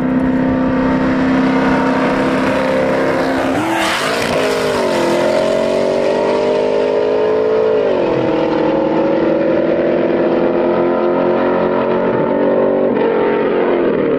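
Two V8 muscle cars, a Dodge 392 HEMI and a Camaro SS, running at full throttle in a street drag race. Their loud engine note drops sharply twice, about four seconds in and again about eight seconds in, with a brief rush about four seconds in.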